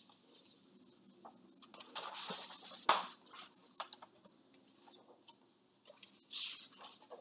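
A large picture book being handled and opened, its pages rustling and turning, with a sharp tap about three seconds in and another brief rustle near the end.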